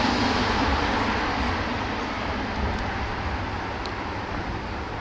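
Street traffic noise: a passing vehicle that slowly fades away.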